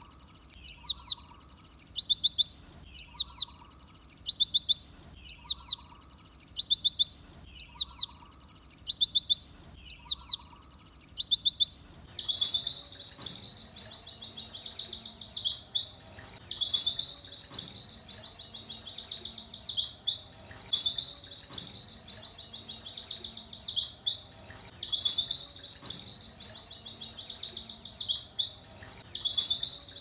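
A white-eye (pleci) singing a rapid, high-pitched trilling song in canary-like style, in phrases of about two seconds separated by short pauses. About twelve seconds in, the recording changes to a denser bout of the same kind of song with hardly any pauses.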